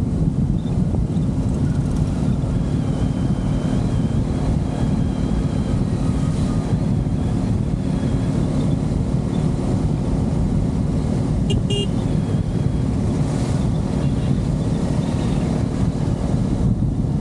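Yamaha R15 V3 single-cylinder motorcycle cruising at road speed: steady wind rush on the rider's microphone over the running engine. A short horn toot sounds about twelve seconds in.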